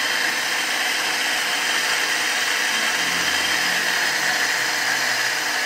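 Small electric surface water pump running steadily, its motor giving an even mechanical whir.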